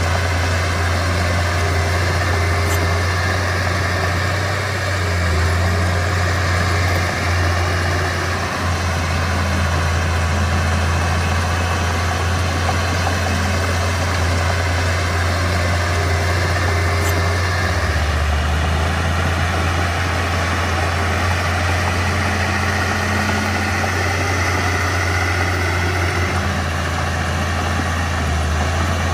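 Mitsubishi BD2F bulldozer's diesel engine running steadily with a deep hum while the machine works, its note shifting a few times.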